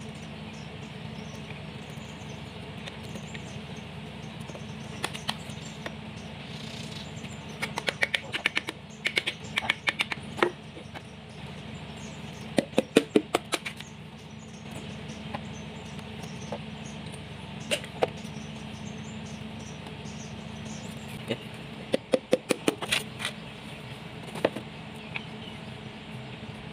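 Hand tools and metal engine parts clicking and tapping in quick bursts of several strokes at a time, over a steady low hum.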